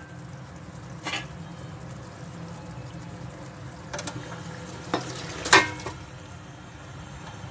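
Soaked basmati rice tipped from a plastic bowl into an aluminium pot of simmering peas and potatoes: a few short clunks, the loudest about five and a half seconds in as the rice lands, over the steady sizzle of the pot.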